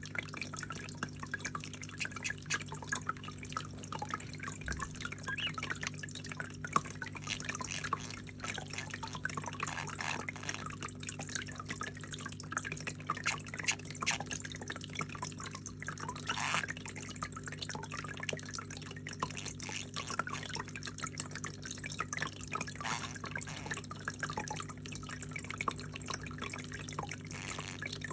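Small flower fountain with water trickling and dripping steadily, over the steady low hum of its pump.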